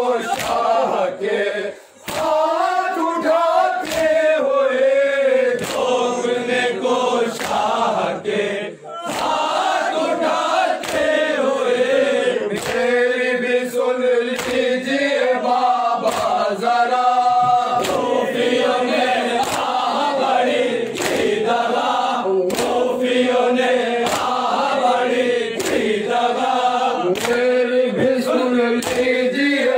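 A group of men chanting a noha, a Shia lament, in unison, with sharp slaps of hands beating on chests (matam) about once a second. The chant pauses briefly twice between lines.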